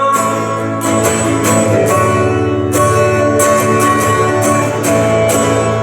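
Live band music in an instrumental passage: plucked strings over held notes, no singing.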